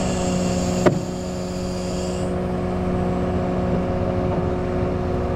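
Large engine running at a steady speed, an even drone, with a single sharp click about a second in.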